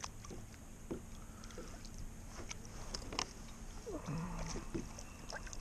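Quiet handling sounds on a plastic kayak: scattered soft clicks and knocks of fishing gear and a landing net while a hooked channel catfish is brought alongside. A short low hum from the angler about four seconds in.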